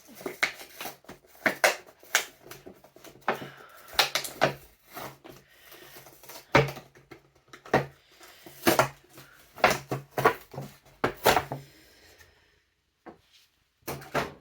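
A cardboard-and-plastic doll box being handled and opened by hand: irregular crackles, taps and knocks that die away about twelve seconds in, with a few last clicks near the end.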